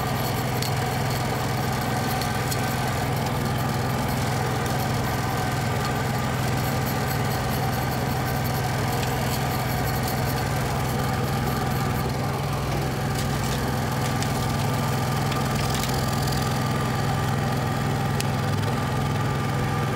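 Semi-truck diesel engine idling steadily.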